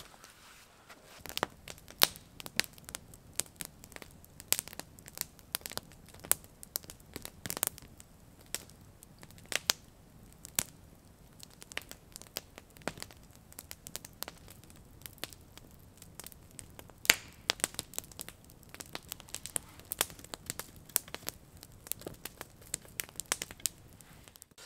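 Log campfire crackling and popping, with irregular sharp snaps, a few of them loud, over a soft hiss of burning.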